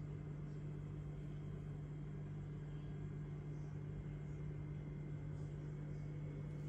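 A steady low hum with no other events.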